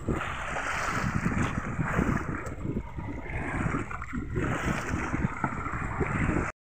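Wind buffeting the microphone aboard a fishing boat at sea, with the wash of waves: an uneven, gusty rumble. It cuts off abruptly near the end.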